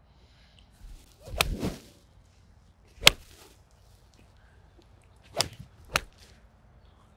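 Golf clubs striking balls on a driving range: four sharp contacts, the loudest about three seconds in and the last two close together near the end, with the swish of a swing around the first.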